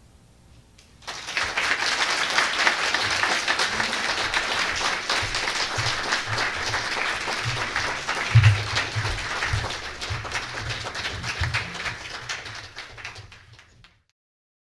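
Audience applauding, starting about a second in, fading near the end and then cutting off.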